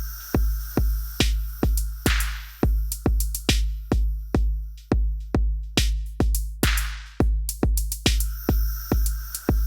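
Electronic groove played on an Elektron Digitakt drum machine and Digitone synthesizer: a steady kick drum about two and a half times a second under clicking percussion and held synth tones, with a rushing swell twice.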